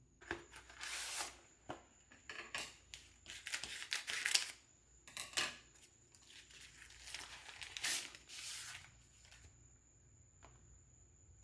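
Paper or plastic wrapping being handled, crinkling and rustling in a string of irregular bursts, loudest about four seconds in, over a faint steady high-pitched whine.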